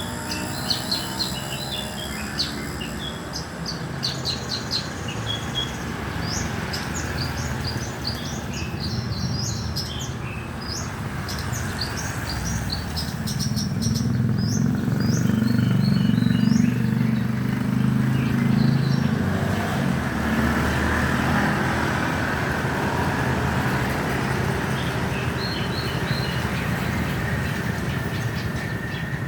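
Small songbird, a tipsi, chirping in quick runs of short, high notes that thin out in the last third. A vehicle passes with a low rumble about halfway through.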